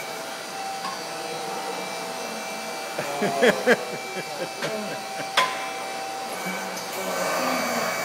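Wordless yelling from a rider spinning in a multi-axis human gyroscope ride, about three seconds in, with a few sharp knocks, over a steady whooshing hum.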